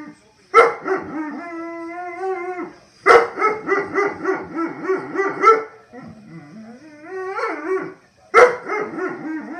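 Puppy howling and complaining in four long, drawn-out calls, each starting sharply. The second call wavers in quick pulses and the third is quieter. It is a protest at being made to eat food with its medicine in it.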